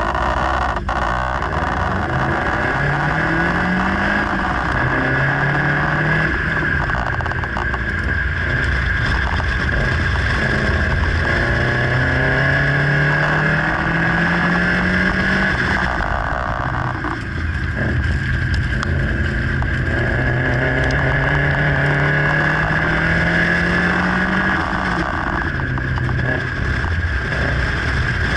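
Subaru Impreza 2.5RS's 2.5-litre flat-four engine being driven hard, its pitch climbing and dropping again and again as the driver accelerates and lifts between cones, heard from outside the car's flank with steady road and wind noise underneath.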